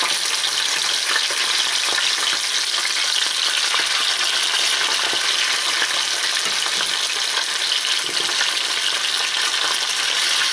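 Pieces of burbot frying in hot oil in a pan: a steady sizzle with faint scattered crackles.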